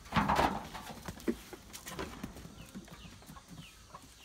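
A brief rustling burst at the start, then scattered light clicks and a few faint, short falling chirps from chickens.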